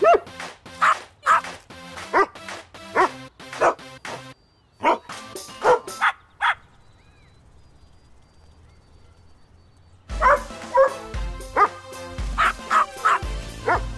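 Several dogs barking in turn, short sharp barks about two a second, over background music. The barking stops for a few seconds in the middle, then starts again over a heavier, pulsing music beat.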